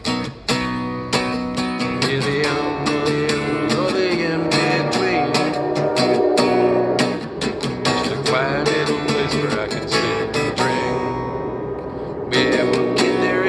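Acoustic guitar strummed in a steady, driving rhythm meant to match a train running down the tracks, getting louder about a second before the end.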